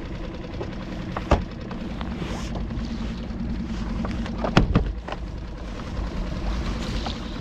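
A small skiff's outboard motor running steadily at trolling speed, with wind and water noise. Two sharp knocks come from tackle being handled, about a second in and again midway.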